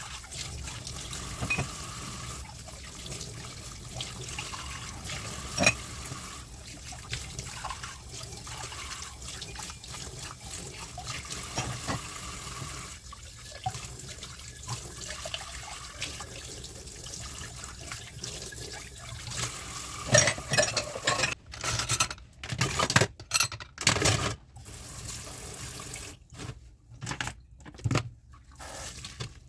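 Kitchen sink tap running steadily while dishes are washed, with occasional clinks of dishware. About two-thirds of the way through the water stops and a run of loud knocks and clatters follows, the loudest sounds here.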